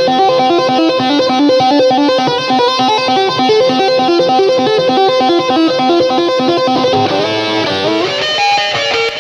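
Electric guitar playing a fast, repeating picked note pattern. About seven seconds in it breaks into a quick run and moves into a different riff.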